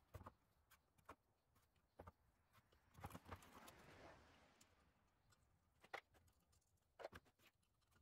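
Faint, scattered clicks and taps of hand tools and small metal parts being handled on a diesel cylinder head during valve removal, with a brief scraping rustle a few seconds in.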